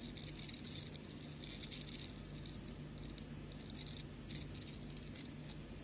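Small beads clicking and rattling faintly against each other as fishing line is threaded through them, in short irregular clusters of light clicks.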